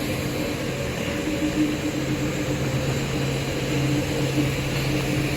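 Machinery of a rubber hose production line running with a steady mechanical hum, made up of a low drone and a higher tone; the low drone grows stronger about two seconds in.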